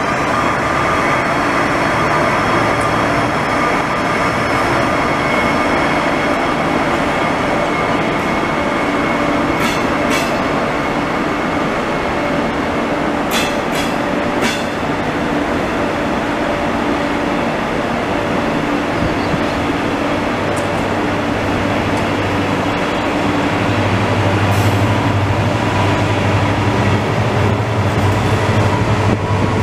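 Israel Railways double-deck passenger train passing close by: a steady rolling rumble of the coaches' wheels on the rails, with a few sharp clacks over rail joints about ten and fourteen seconds in. Near the end a deep, steady hum grows louder as the locomotive pushing the train draws near.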